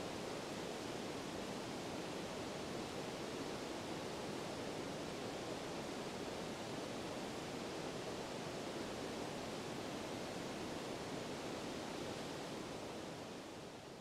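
Steady rushing outdoor ambience in a snowy conifer forest, an even wash of noise with no distinct events, fading out at the end.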